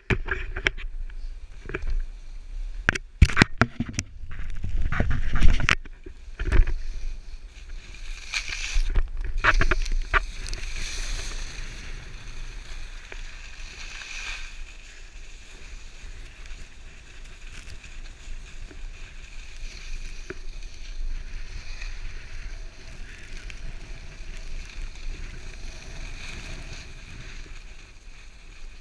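Knocks and rubbing from a handheld GoPro pole being handled for the first several seconds, then a steady hiss of skis gliding over groomed snow.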